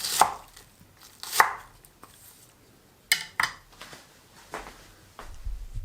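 A restored old kitchen knife slicing through vegetables onto a cutting board: about five separate cuts at uneven spacing, with a quick pair of cuts midway. A low rumble comes in the last second.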